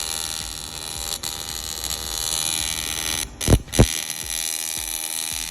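Electric welding arc buzzing steadily on stainless steel exhaust work, cutting out briefly a few times. There are two short low thumps about three and a half seconds in.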